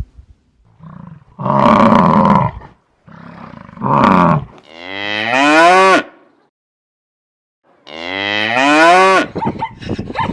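Cattle mooing: several long, loud moos in a row, two of them rising in pitch.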